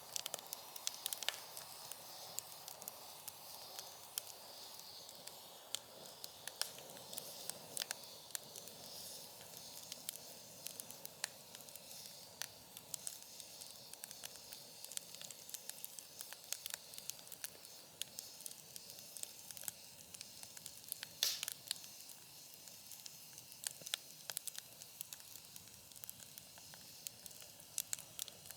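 Wood fire crackling in a fire pit: irregular sharp pops and snaps over a faint steady hiss of burning wood, with one louder pop about 21 seconds in.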